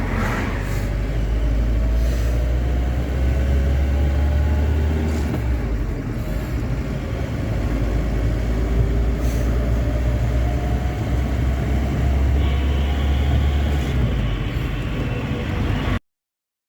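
Road vehicle travelling on a highway: a steady low rumble of road and engine noise with faint engine tones rising and falling. It stops abruptly near the end.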